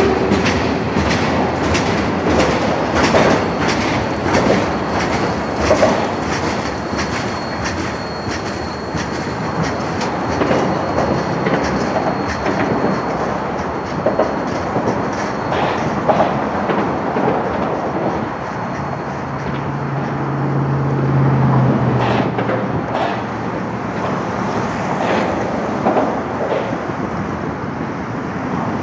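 Freight train's covered hopper and tank cars rolling past, their wheels clacking over the rail joints in an irregular clickety-clack, with a faint high wheel squeal through the first half.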